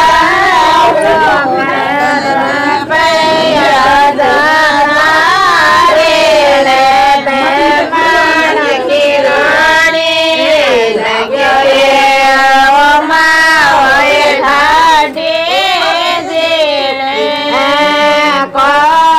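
A woman singing a devotional bhajan, one high voice carrying the melody in long, wavering held notes, with short breaks between phrases.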